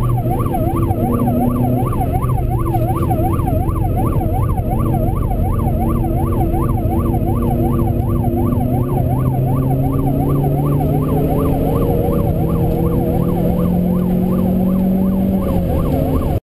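Yelp siren on the Renault Clio 2.0 course car, sweeping up and down about two and a half times a second, over the car's 2.0-litre four-cylinder engine, whose note climbs gradually in the last few seconds. Heard from inside the cabin; everything cuts off abruptly just before the end.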